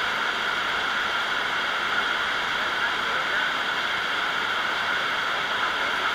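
Crowd chatter: a steady, unbroken murmur of many voices talking at once, with no single voice standing out.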